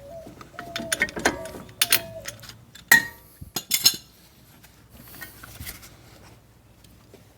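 Metal brake tools and parts being handled: several sharp clicks and knocks with a few short squeaks in the first four seconds, then quieter handling.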